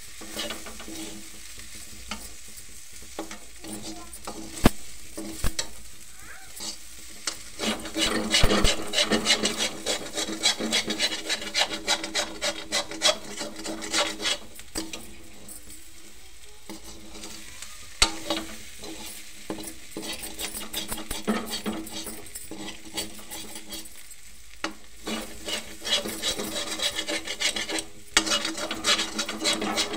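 Perforated metal spatula scraping and stirring diced potatoes around a metal kadhai, in spells with short pauses, over a low sizzle of frying. A couple of sharp knocks of metal on the pan stand out.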